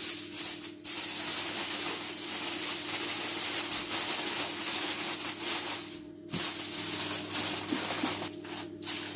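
Aluminium foil crinkling and rustling as it is folded and crimped shut into a parcel, with a short pause about six seconds in.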